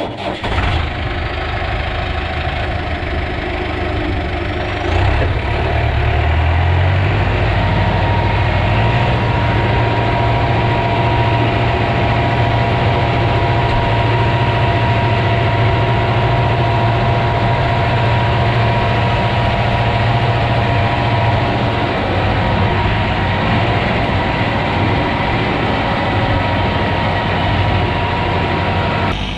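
Heavy diesel engine of a construction machine running steadily at idle. Its low note shifts and grows louder about five to seven seconds in, then holds steady.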